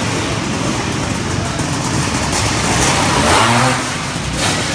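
Race car engines running at speed, one growing louder about three seconds in and then fading.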